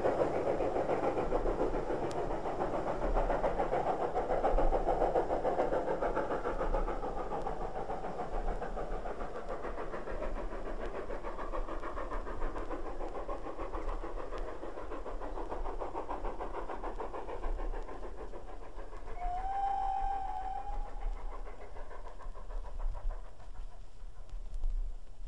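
GWR 'King' class four-cylinder 4-6-0 steam locomotive hauling an express, its exhaust and train noise loudest at first and fading steadily as it draws away. About twenty seconds in, a short whistle sounds once.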